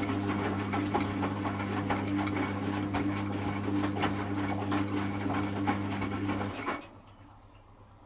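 Servis M3008B washing machine's drain pump running with a steady electrical hum and a gurgling rattle of water being pumped out. It cuts off sharply near the end.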